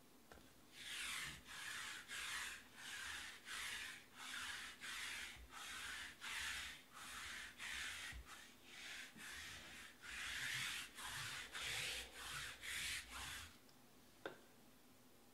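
A hand rubbing back and forth across the tabletop in even strokes, about one and a half a second, starting about a second in and stopping a couple of seconds before the end, followed by a single click.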